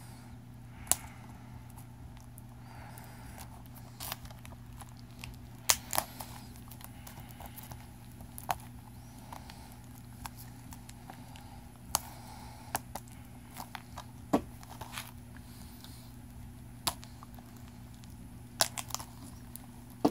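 Scattered sharp plastic clicks and crackles from a Blu-ray case being handled and opened, about a dozen spread irregularly, over a steady low hum.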